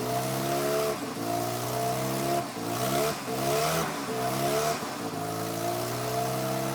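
Freshly rebuilt Mazda RX-7 FC3S 13B-T twin-rotor turbo rotary engine being blipped several times, the pitch climbing and dropping with each blip, then settling to a steady idle about five seconds in.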